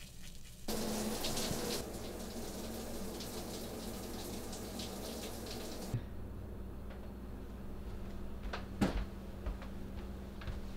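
Bathroom tap running in an even hiss, starting about a second in and cutting off abruptly about six seconds in. After that only a low room hum remains, with a few light knocks.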